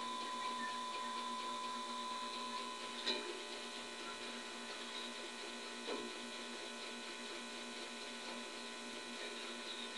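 Mini Tesla coil kit running with a steady electrical hum made of many stacked tones, broken by faint brief crackles about three and six seconds in.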